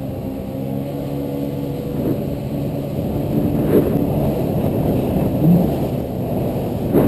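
Yamaha WaveRunner jet ski engine running at a steady, slightly rising speed, with short gusts of rushing noise from about halfway through.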